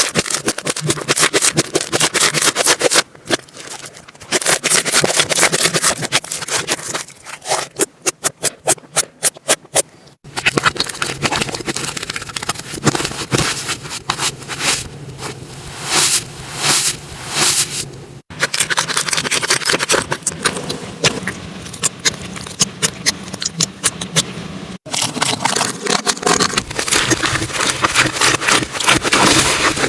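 Slime being squeezed, pressed and stretched by hand, giving dense sticky crackling and popping clicks, with a run of quick even clicks about eight seconds in. The sound cuts off abruptly three times as one clip gives way to the next.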